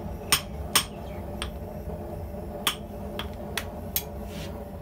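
Hand hammer striking a red-hot steel drill bit on the anvil, forging it into a spade bit: two sharp blows close together about half a second in, then a few lighter, spaced strikes later. A steady low hum runs underneath.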